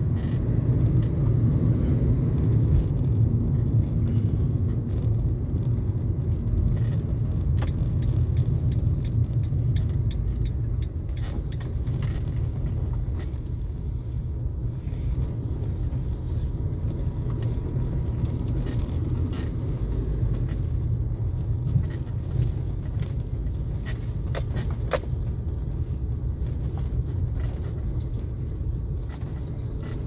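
Road noise inside a moving car: a steady low rumble of tyres and engine, easing off a little about ten seconds in, with scattered small clicks and rattles from the cabin.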